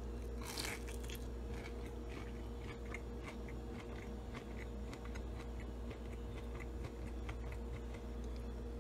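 A crunchy bite into a panko-breaded, pan-fried pork tenderloin about half a second in, then chewing with many small crunches of the crisp crust.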